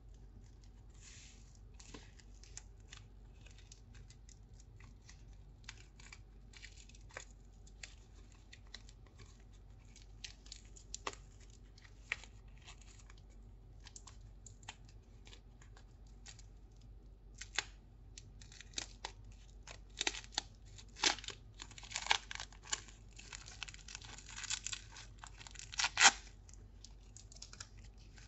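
Thin white protective wrapping paper on a new handbag's handles and hardware crinkling and tearing as it is pulled off by hand, in many short crackles that come thicker and louder in the last third.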